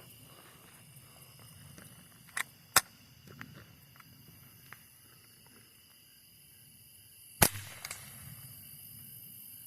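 A single shot from a Savage Model 64 semi-automatic .22 rifle firing a CCI Quiet-22 semi-auto round: one short, sharp crack about three-quarters of the way in, with the low-powered round still cycling the action. A few lighter clicks come before it.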